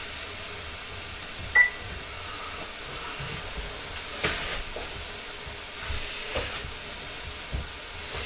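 Venison steaks sizzling steadily in a hot pan, with a few light clinks and knocks of kitchen utensils.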